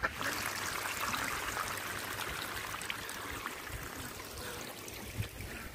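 Water running and trickling steadily, easing off slightly toward the end.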